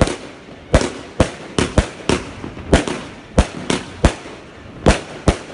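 Klasek Bobr fanned firework barrage firing: a rapid, irregular series of about eleven sharp bangs, some coming in quick pairs, as its shots burst overhead.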